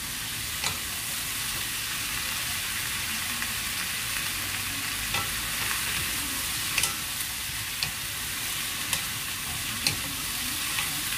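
Sliced zucchini sizzling in hot oil in a frying pan over high heat, stirred and tossed with two wooden spoons. The spoons click against the pan now and then over the steady sizzle.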